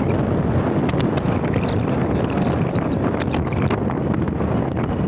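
Wind buffeting the microphone while riding along a road: a steady low rush, with a few light clicks about a second in and again after three seconds.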